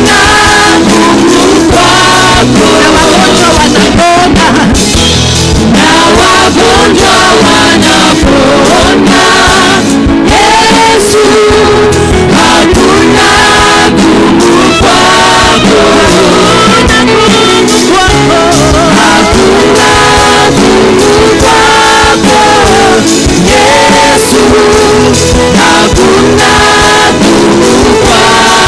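Live Swahili gospel worship music: a singing voice over instrumental backing with a steady beat.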